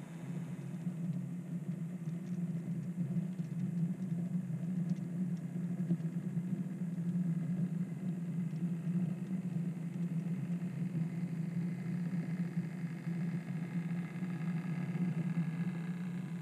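OO gauge model train running on the layout: a steady low engine-like hum from the locomotive, with a few faint ticks in the first few seconds.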